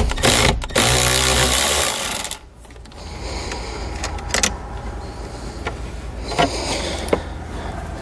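Cordless ratchet with a 13 mm socket running for about two seconds, spinning the nut off the top of the car battery's terminal, followed by a few light clicks as the loosened terminal is handled.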